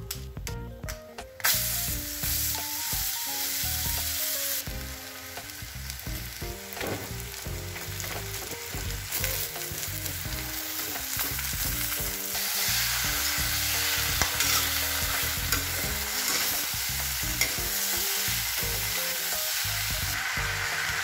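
Onions and chicken pieces frying in hot oil in a steel kadai, sizzling as they are stirred with a spatula. The sizzle starts suddenly about a second and a half in and gets stronger in the second half.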